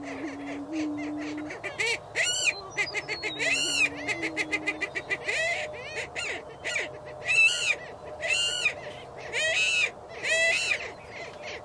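Greater prairie chickens calling on a lek: a low, steady hooting boom in the first second and a half and again from about three to five seconds in, and from about two seconds on a series of high, arching whoops and rapid cackles roughly once a second.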